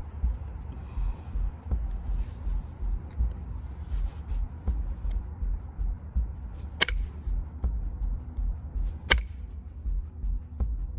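Limestone being knapped: faint scratching and ticking as the edge is worked, with two sharp clicks as flakes snap off, about seven and nine seconds in, the second the louder. A low pulsing rumble of handling noise runs underneath.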